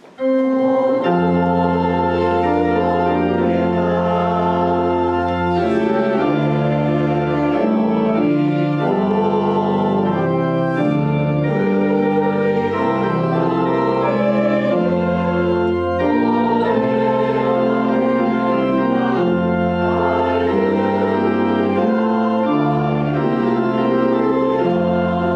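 Organ playing a hymn in slow, held chords over a stepping bass line.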